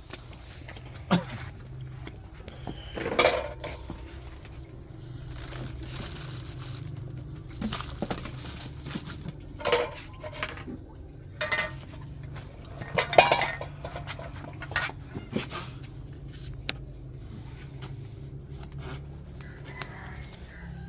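Pots, dishes and utensils clinking and knocking at irregular intervals over a steady low hum.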